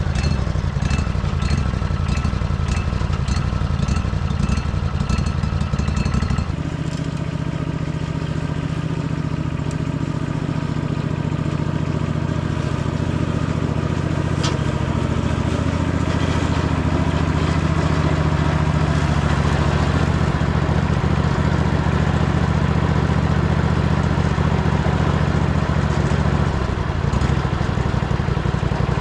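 Agco Allis 1616H riding lawn tractor's engine running steadily just after starting, as the tractor is driven. The engine note shifts about six seconds in and stays steady after that.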